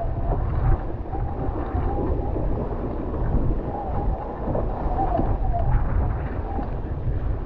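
Wind buffeting the microphone of a camera mounted on a Nacra 15 catamaran under sail, over the steady rush of water and spray off the hull. A wavering whistle comes and goes above the noise.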